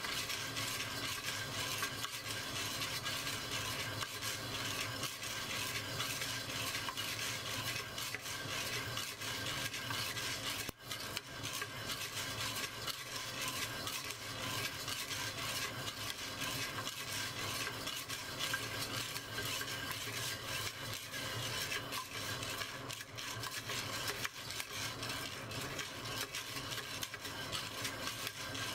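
Coffee beans being stirred and tossed in a clay pot during home roasting: a steady, dense rattle and scrape of many hard beans against the pot. There is a brief break about eleven seconds in.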